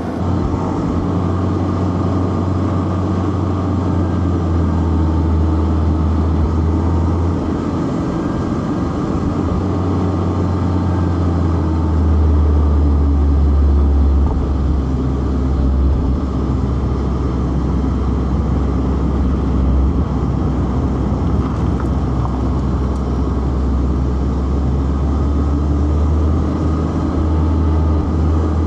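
Inline-four car engine running hard under load, with tyre and road noise; its drone steps in pitch a couple of times as the engine speed changes.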